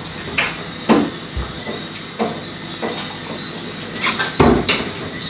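Household clatter: a few scattered light knocks and clicks, with a short hiss about four seconds in followed by a louder knock.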